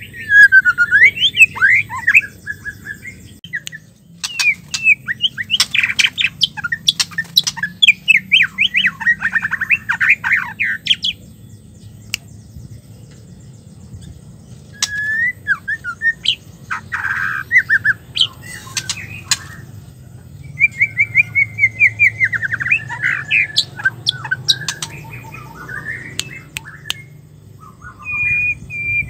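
White-rumped shama calling in bouts of rapid repeated chattering notes and short gliding whistles, with a quieter gap a little before the middle; the uploader presents them as a female's calls.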